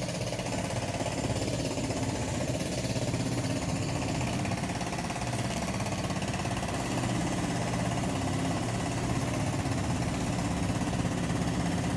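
An engine or motor running steadily, a rough, rapidly pulsing rumble.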